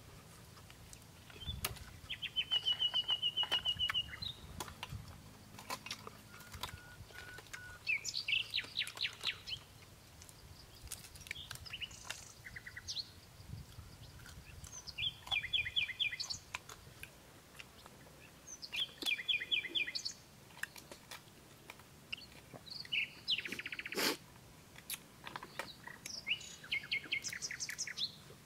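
Birds calling in quick, chirping trills that recur every few seconds, with one sharp click near the end.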